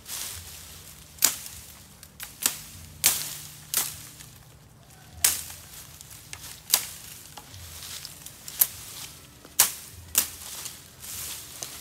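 Machete chopping at a bamboo cane, trimming it: about a dozen sharp whacks at uneven intervals, roughly one a second.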